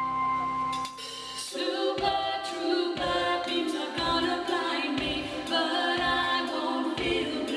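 Choir singing a 1970s pop song live, many voices together over a low beat about once a second that comes in after a held note at the start.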